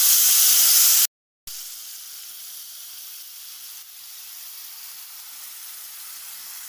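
Mashed papaya going into hot ghee in a kadai and sizzling loudly; the sound cuts out briefly about a second in, then a quieter steady sizzle carries on.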